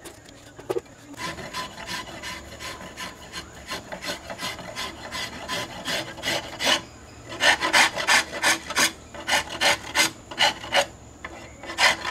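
Long round steel file rasping across a carved wooden piece clamped in a vise, in quick back-and-forth strokes about three a second. The strokes get louder about seven seconds in and stop briefly near the end.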